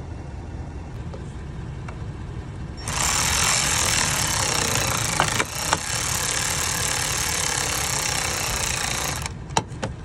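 Red cordless power driver running a socket to drive down a bolt on a truck's battery junction box. It starts about three seconds in, runs steadily for about six seconds with a couple of sharp clicks partway, then stops.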